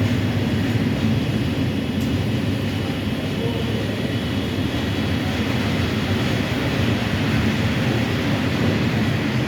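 Freight train of Eas and Eanos open wagons rolling past, a steady rumble of wheels on rails.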